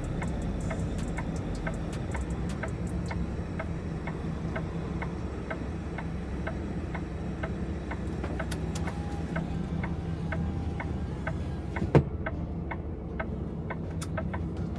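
Semi-truck's engine running steadily at low speed, heard from the cab, with a regular ticking about twice a second. There is one sharp, loud click about twelve seconds in.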